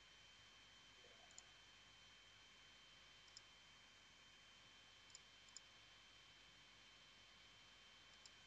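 Faint computer mouse clicks, five scattered single clicks, over near-silent microphone hiss with a thin steady high whine.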